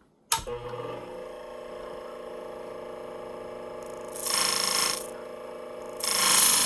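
Powered sharpener with a 1,000-grit abrasive plate switched on, its motor running steadily. A steel shear blade is ground against the plate to sharpen its edge, briefly about four seconds in and again from about six seconds on, each time with a louder, hissy grinding.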